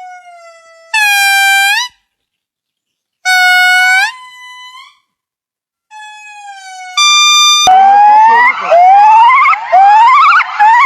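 Primate calls: a few long, clear hoots about a second each, each lifting in pitch at the end, with pauses between. About three-quarters through, a different call cuts in abruptly: a fast series of rising whoops, one after another.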